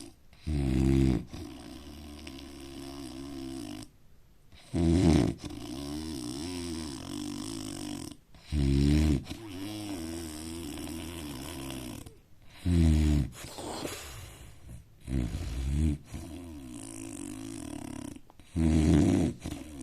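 A man snoring in his sleep: six loud, rasping snores, most about four seconds apart, with quieter breathing between them.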